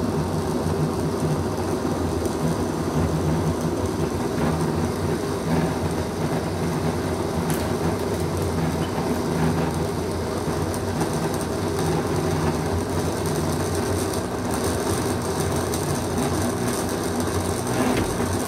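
Electric blender motor running steadily, puréeing a full jar of vegetables, fruit and vinegar into a smooth sauce.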